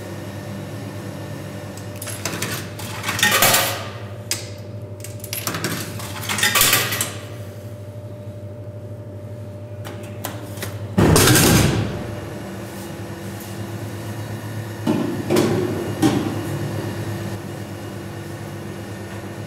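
Coca-Cola can vending machine vending a drink over its steady hum: two short clatters early on, then a loud heavy clunk about midway as the can drops into the delivery tray, and a smaller clatter a few seconds later as the can is pulled out through the flap.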